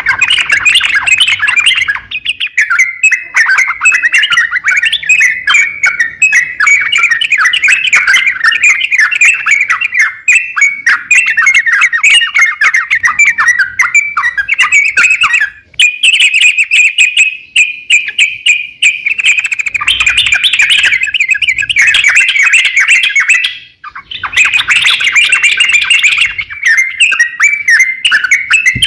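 Crokcokan, a bulbul, singing in full song: a long, rapid run of loud chattering chirps, broken by two short pauses, near the middle and about three-quarters through.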